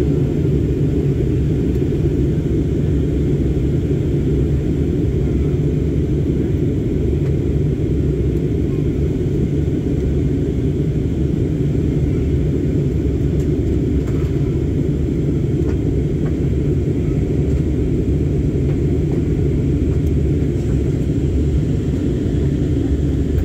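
Steady low rumble of a jet airliner's cabin in flight: engine and airflow noise heard from inside, at a window seat.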